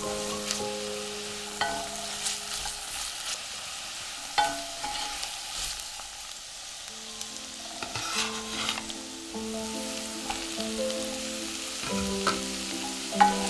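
Vegetables sizzling as they fry in a pot, stirred with a spoon that scrapes and now and then knocks sharply against the pot. Soft background music with held notes plays under it.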